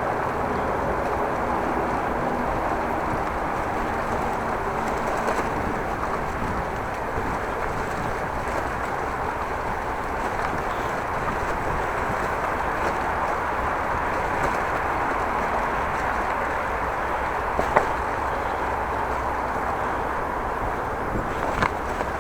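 Steady wind rushing over an action camera's microphone while cycling into a strong wind, with two short clicks near the end.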